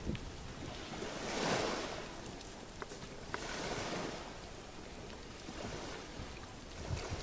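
Small waves washing up on a pebble beach, the hiss of the water swelling twice, with wind rumbling on the microphone.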